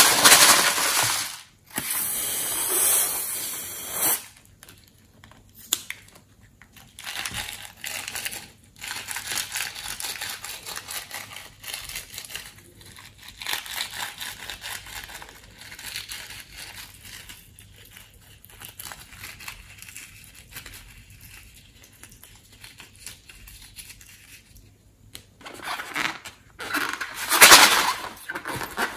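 Wet, sticky slime crackling and squelching as slime is squeezed out of a balloon into a bowl of glossy slime. The sounds come in irregular bursts, louder at the start and again near the end.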